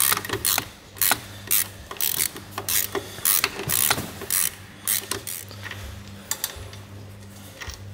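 Ratchet wrench clicking in short repeated runs as sump bolts on an AEC Routemaster bus engine are undone by hand. The clicking grows sparser and fainter over the last few seconds.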